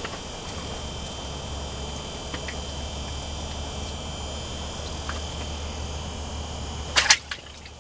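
A steady low hum with a few faint high tones over it, and occasional light ticks while a small panfish is unhooked by hand. A quick cluster of loud sharp knocks comes about seven seconds in.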